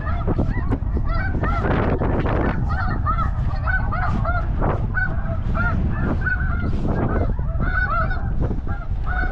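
A dense chorus of snow goose calls: many short, high, overlapping honks, one after another without a break.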